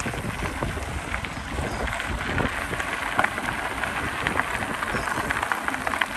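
Bicycle tyres crunching and crackling over loose gravel on an uphill climb, with a steady rumble of wind on the microphone.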